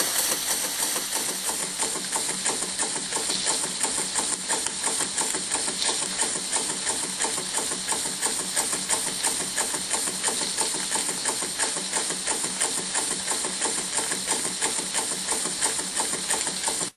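Bio-Fiz educational model steam engine running steadily: a fast, even mechanical beat from its reciprocating valve gear over a constant hiss of steam.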